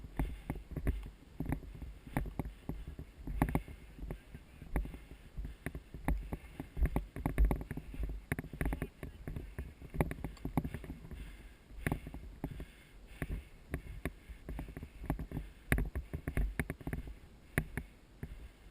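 Irregular knocks and rustling close to the microphone, several a second with no steady rhythm, and low thumps throughout.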